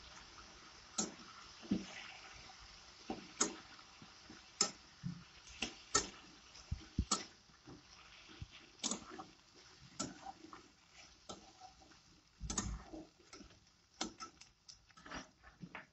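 Metal spatula scraping and knocking against a wok while stirring, in sharp irregular clicks about once or twice a second, over a faint sizzle.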